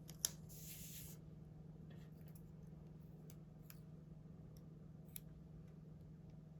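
Quiet handling of paper sticker sheets: a sharp click just after the start, a brief rustle, then a few faint ticks and another click about five seconds in, over a faint steady hum.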